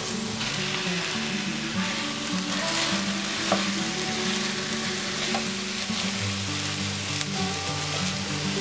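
Diced onions and plant-based ground meat sizzling in a hot frying pan while a wooden spatula stirs and breaks up the meat, with a few sharp ticks of the spatula against the pan.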